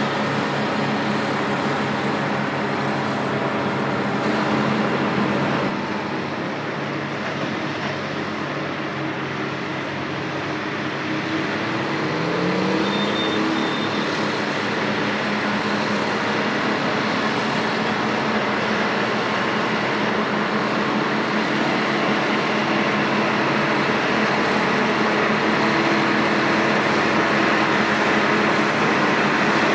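Terex TS-14B scraper's twin Detroit Diesel 4-71 two-stroke engines working, a steady heavy diesel drone. About twelve seconds in, one engine revs up in a short rising sweep.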